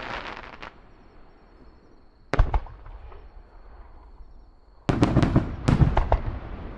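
Fireworks going off: a crackling fizz at the start, a single sharp bang a little over two seconds in, then a rapid cluster of bangs and crackles from about five seconds in.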